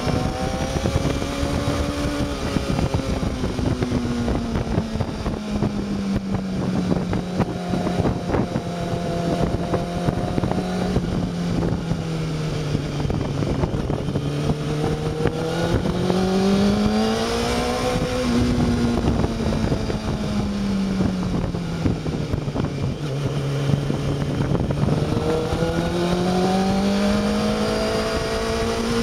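Honda CBR600 F2's inline-four engine running on the move over steady wind buffeting. Its pitch sinks slowly as the bike eases off, climbs again as it accelerates about halfway through, sinks once more, and starts rising again near the end.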